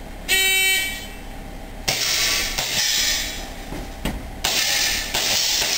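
An electronic shot-timer beep lasting about half a second, then a string of pistol shots, about four or five, starting about two seconds in, each ringing on in the reverberation of an indoor range.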